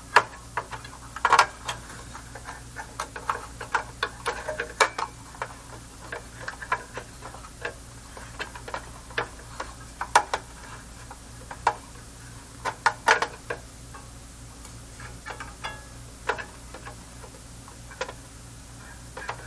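Irregular light clicks and taps of hand tools and small parts being handled inside an amplifier chassis during repair, a few sharper than the rest, over a steady low hum.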